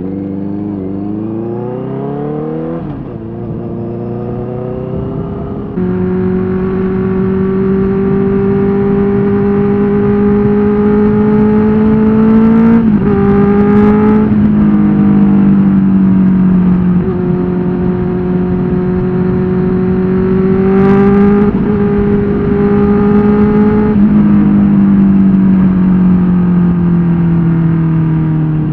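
Benelli TNT 600's inline four-cylinder engine pulling hard, its pitch climbing twice in the first few seconds with a gear change between. It then runs at a steady high note with a few brief gear changes, and the pitch eases down slowly near the end.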